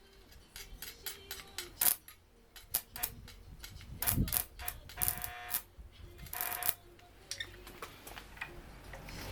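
Irregular clicks and clinks of tools and small metal parts being handled during a welder repair, with a short scraping rattle about five seconds in and another a little later.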